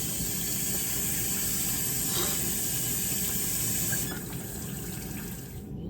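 Faucet running water into a sink, shut off about four seconds in, after which only a lower steady background noise remains.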